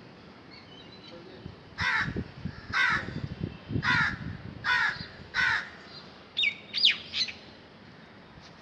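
A crow cawing five times, evenly spaced about two-thirds of a second apart, followed near the end by a few short, sharp bird chirps.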